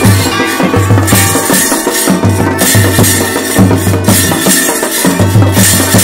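Chholiya folk band playing: dhol and damau drums beating a steady rhythm of about two strokes a second, with a sustained wind-instrument drone held above the drums.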